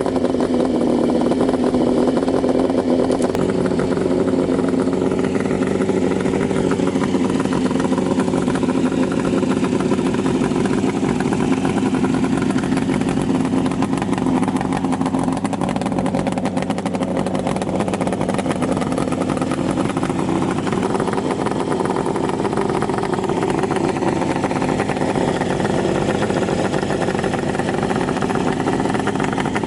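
Kawasaki 500 H1 two-stroke three-cylinder engine running at a steady speed through expansion-chamber exhausts with silencers, with small rises and falls in revs.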